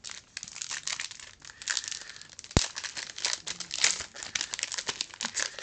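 Foil booster pack wrapper crinkling and rustling as it is handled and opened, in a dense run of small crackles, with one sharp click about two and a half seconds in.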